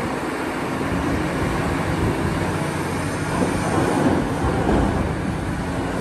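Caterpillar 6015B hydraulic mining excavator at work loading a dump truck: a steady heavy mechanical rumble of the running machine, swelling a little midway.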